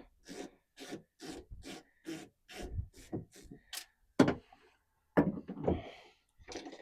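A 1/4-inch swivel-head ratchet worked back and forth at a steady pace of about two strokes a second, backing out a Torx T20 screw. Two louder knocks follow a little after the middle.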